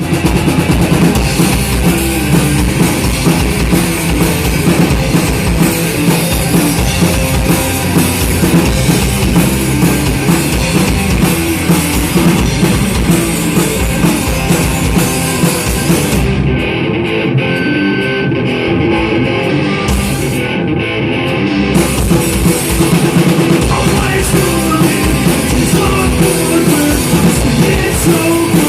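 Live rock band playing loudly on drum kit and guitar. The cymbals and high end drop out for a few seconds about two-thirds of the way through, then the full band returns.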